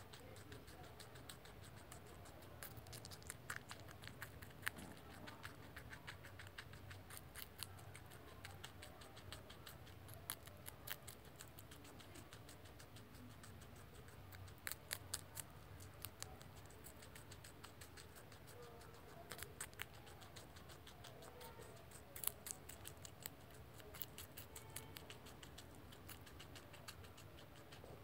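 A baby rex guinea pig crunching celery: crisp bites and chews in short clusters with pauses between.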